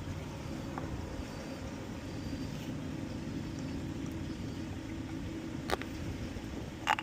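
A steady low mechanical hum, with two brief clicks in the last couple of seconds.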